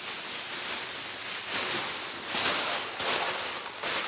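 Fabric rustling as clothes are handled and moved about, in several irregular swishes.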